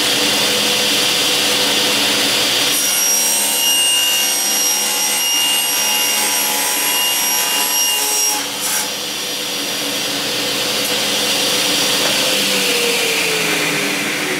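A 3-horsepower table saw with an 80-tooth non-ferrous Diablo carbide blade runs at full speed. From about 3 to 8 seconds in, the blade cuts a strip from a 3/16-inch plastic sheet, adding steady high tones over the motor's noise. Near the end the pitch falls as the saw begins to wind down.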